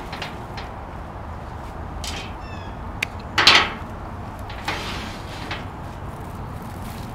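Hydrangea flower heads and leatherleaf fern rustling and brushing as stems are handled and pushed into a glass vase, with a few light clicks. The loudest rustle comes about three and a half seconds in.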